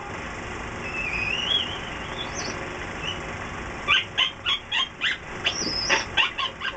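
A faint wavering whistle, then from about four seconds in a rapid run of short, high-pitched yelps, several a second, from a small animal.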